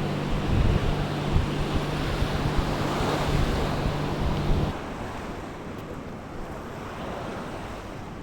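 Wind buffeting the microphone, with a low steady hum beneath it, over the wash of sea waves. The buffeting and hum cut off suddenly about halfway through, leaving a softer, even rush of surf.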